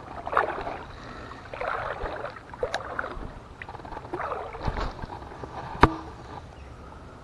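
Rustling and knocking from a spinning rod and reel being handled right at the camera, a sleeve brushing across it, with scattered clicks. The sharpest click comes a little before six seconds in.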